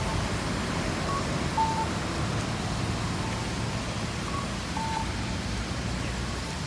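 Steady street traffic noise, with a short two-note electronic beep, a brief higher blip followed by a lower tone, repeating about every three seconds.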